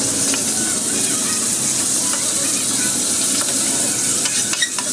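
Chicken frying in hot oil: a steady sizzle with small crackles scattered through it.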